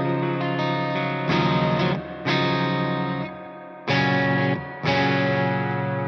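Electric guitar, an LTD JM-II on its neck Bethnal Green pickup, played with a clean tone. Chords are struck and left to ring, with a new chord roughly every second or so.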